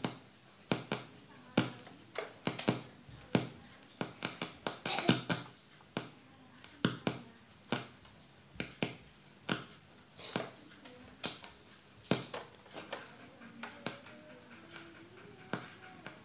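Irregular sharp clicks and light knocks, one to three a second with some in quick clusters, as from handling small tools and parts on a workbench; they thin out near the end.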